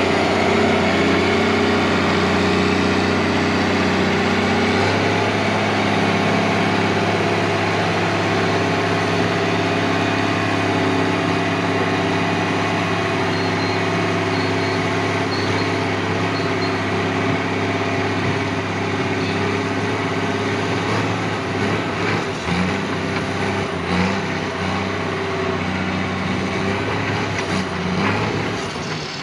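Heavy diesel engine of an earthmoving machine running steadily, with a few knocks near the end.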